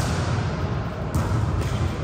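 A volleyball being struck: a sharp smack at the start and two more a little after a second in.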